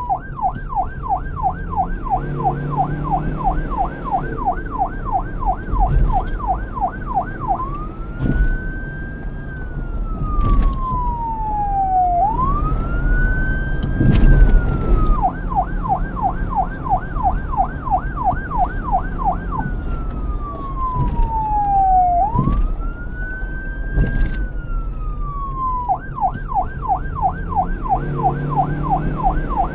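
Police car electronic siren switching between a fast yelp, about three sweeps a second, and a slow wail that rises and falls over a few seconds. It cycles yelp, wail, yelp, wail, yelp, over a low rumble.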